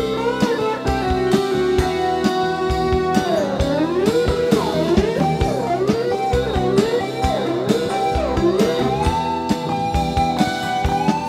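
Live band music led by an electric guitar solo: sustained lead notes that bend and slide up and down in pitch, fastest in the middle, over a steady drum kit beat.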